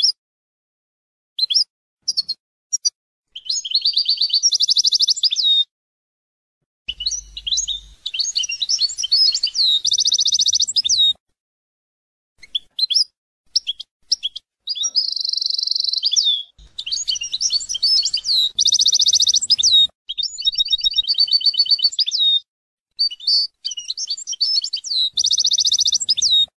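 European goldfinch singing: several phrases of quick twittering notes and rapid buzzy trills, each a few seconds long, separated by short silent gaps.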